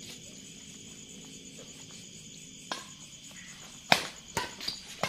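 Badminton rackets striking a shuttlecock during a rally: a single sharp hit about two and a half seconds in, then a quick run of hits near the end, the first of them the loudest. Crickets chirp steadily in the background.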